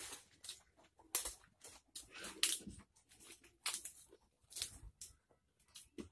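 Irregular crisp crunches and wet mouth clicks of someone eating raw leafy greens with rice by hand, mixed with the rustle of fresh leaves being picked up and rolled.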